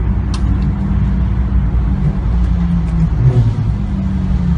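Car engine running steadily at low revs, its pitch shifting slightly down and back up a couple of times.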